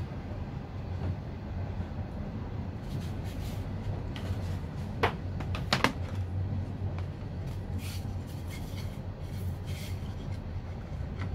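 Stained pallet-wood boards knocking against each other and the workbench as they are handled, two sharp knocks about five and six seconds in and a few lighter clicks, over a steady low hum.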